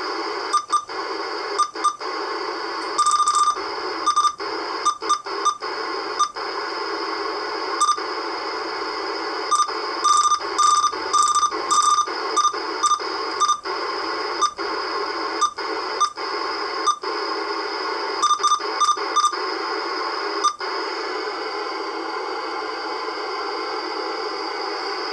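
Sideband CB radio receiver hissing with static and skip, with no interference buzz. Short beeps come singly and in quick runs as the channel knob is clicked through the channels, each one briefly cutting the static. The beeps stop near the end while the static goes on.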